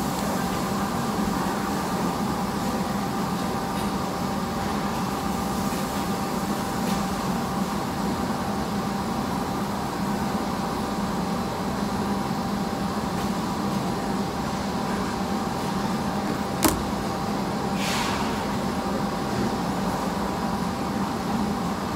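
Steady mechanical background hum: a low drone with a few faint steady tones above it. One sharp click about 17 seconds in, and a brief hiss a second later.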